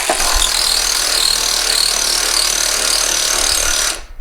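A cordless power tool's motor running steadily with a wavering high whine, then cutting off suddenly near the end as its battery runs flat.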